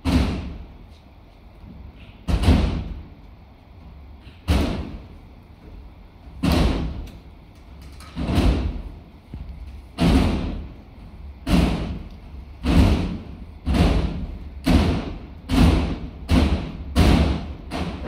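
About a dozen heavy, resonant thuds, each ringing out briefly, coming faster and faster.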